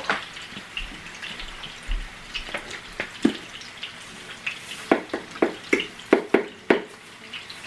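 Kitchen cooking noises: a run of sharp clicks and taps, sparse at first and crowding together at about three a second in the second half, over a faint steady hiss.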